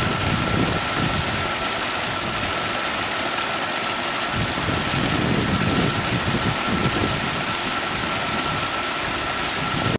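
Water boiling up in a large plume at the surface of a tank, a steady churning rush with an uneven low rumble and a thin constant tone running through it.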